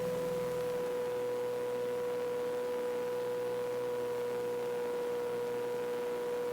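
Steady drone of a KR-2S homebuilt's engine in flight, heard through the cockpit audio hookup as an even hum with one clear, unchanging pitched tone.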